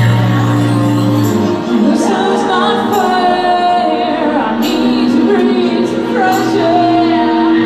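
A song played live: a woman singing over the band's instruments, with held notes and sliding pitches.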